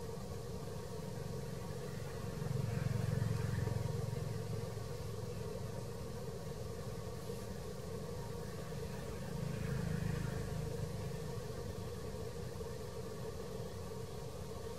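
Steady low rumble with a constant hum, swelling louder twice, about three seconds in and again about ten seconds in.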